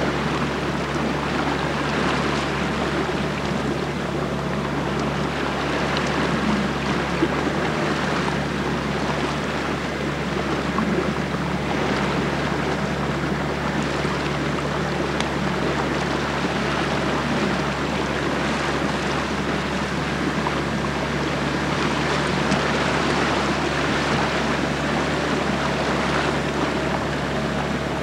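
A small boat's motor running steadily at an even pitch, under a constant rush of water.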